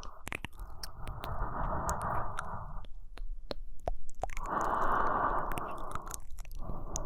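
Close-miked slow human breathing: long soft breaths about two seconds each, three in a row with short pauses between, with small wet mouth and lip clicks throughout.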